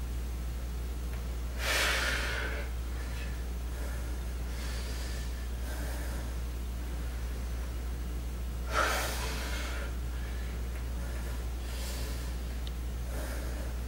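A man breathing hard with exertion during lunges: two loud, forceful breaths about seven seconds apart, with softer breaths in between, over a steady low hum.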